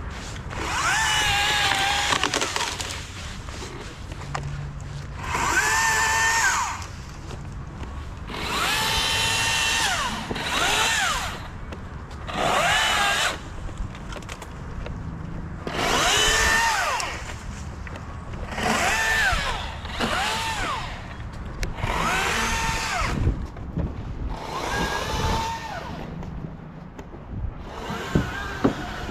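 Chainsaw cutting wood in repeated short bursts, about nine runs of one to two seconds each. Between runs it drops back to a quieter idle, and its pitch sags and recovers within each run as the chain works through the wood.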